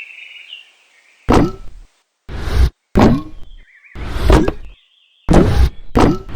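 Cartoon sound effects: a string of about seven thuds or whacks, some with a short falling tone. A brief squeaky glide comes between them partway through.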